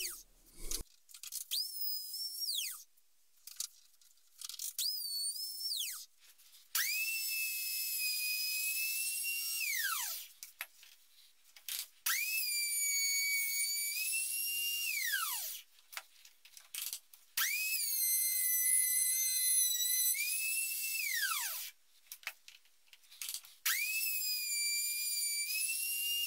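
Palm router whining through about six separate runs as it trims the plywood trunnion arc. The first two runs are short and higher pitched; in the long runs the whine sags slightly in pitch while cutting, and each run ends with a falling whine as the motor is switched off and spins down.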